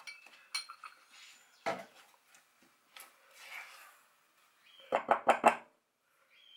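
A spatula stirring dry flour, sugar and salt in a glass bowl: soft scraping with scattered knocks against the glass. A quick run of about five taps comes near the end.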